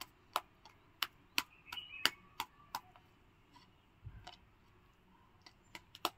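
Soft dough being pulled and folded by hand, giving faint, sharp, sticky clicks at an irregular pace, a few per second, thinning out in the middle.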